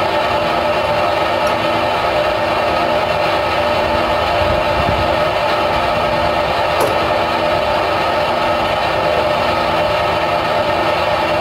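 A machine running steadily with a loud, even drone, and one faint click about seven seconds in.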